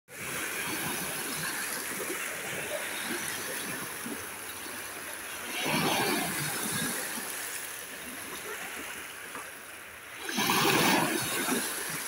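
Small waves breaking on a pebble beach, foam and water washing over the stones with a steady fizz. Two waves break louder, about halfway through and again near the end.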